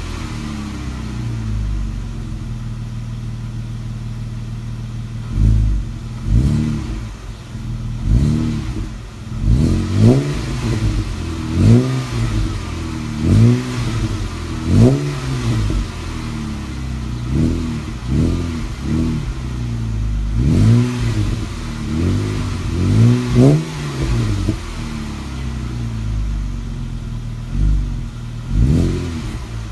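Jeep Wrangler JK's 3.6-litre V6 through a PENZL aftermarket exhaust, idling steadily and then blipped on the throttle again and again, each rev rising and falling back to idle within about a second, a dozen or more times.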